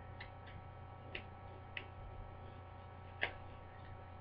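A few light, scattered clicks and taps as a strip of duct tape and a pair of scissors are handled, the sharpest about three seconds in, over a steady low hum.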